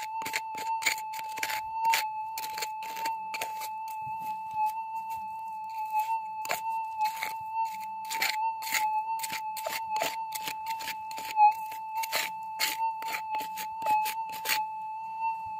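A small hand pick scraping and chopping into gravel in many quick, irregular strokes. Behind it runs a steady, high electronic tone from a metal detector.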